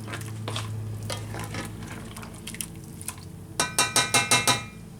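A utensil stirring and scraping in a frying pan of shrimp sizzling in white wine sauce, then, near the end, a quick run of about seven ringing metal clinks.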